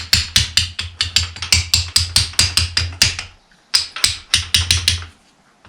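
Hammer blows in quick succession, about five a second, driving a part home during a 1955 Fordson Major bull pinion rebuild. There is a short pause after about three seconds, then another run of blows that stops near the end.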